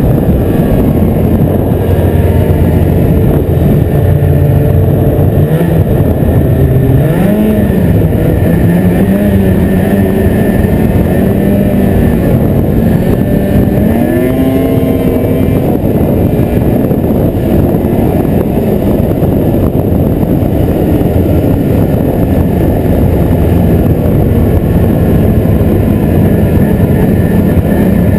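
Ski-Doo snowmobile engine running at speed under a steady loud rush. Its pitch dips and rises a couple of times with the throttle, once at about a quarter of the way in and again near the middle.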